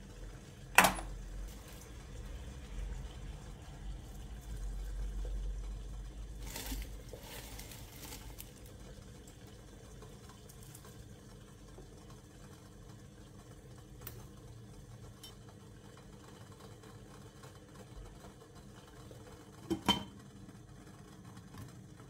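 Enamel teapot lid lifted off with a sharp metal clink about a second in, a short rustle in the middle as something is dropped into the pot, and the lid set back on the steel rim with two quick clinks near the end, over a low steady hum.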